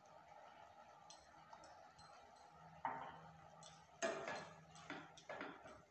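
Steel spoon scraping and clinking against a stainless steel pan as it stirs a thick onion-tomato masala, a few short strokes starting about three seconds in after a few faint ticks.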